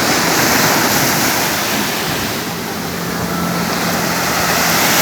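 Sea surf washing onto the shore, a steady rush of water that swells and eases. A faint low steady hum comes in about halfway through.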